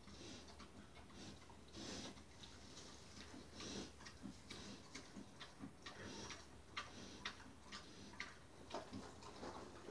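Pig crunching dry feed pellets from a bowl: faint, irregular crunching clicks.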